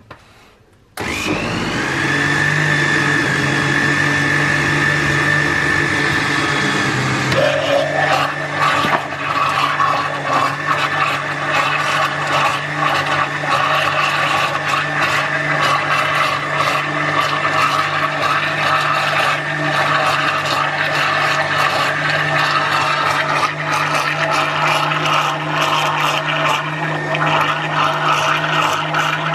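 Electric blender motor switches on about a second in and runs steadily. A little past seven seconds its pitch shifts and a busy rattle joins as it churns the contents.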